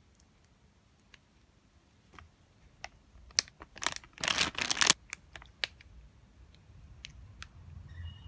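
Crinkling and rustling of a clear plastic parts packet being opened, loudest in a burst around four to five seconds in, with a few light clicks of handling before and after.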